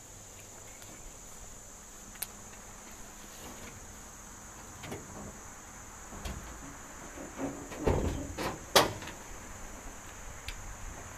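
Metal clunks and clicks from the hood of a 1972 Chevrolet pickup being released and raised, a run of knocks between about five and nine seconds in with the loudest clunk near the end, over a steady high drone of insects.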